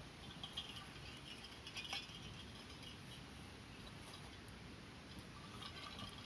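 Wood fire burning in a mont-bell Folding Fire Pit: faint crackling, with soft scattered pops and ticks, a small cluster about two seconds in and a few more near the end.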